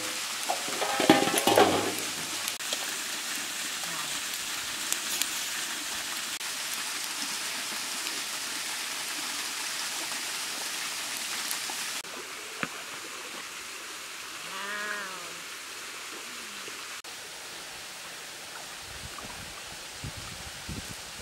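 Steady hissing sizzle of a whole snakehead fish cooking in a steaming wok over a wood fire, opening with a few metal clanks. About twelve seconds in it drops to a quieter hiss, broken by a short rising-and-falling call and a few soft thumps near the end.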